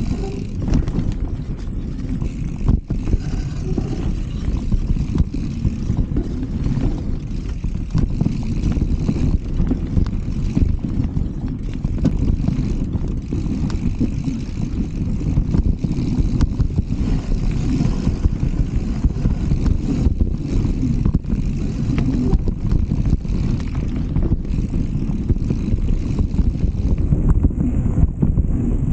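Wind buffeting the microphone along with rumbling tyre and trail noise from a mountain bike being ridden, broken by scattered small knocks and rattles.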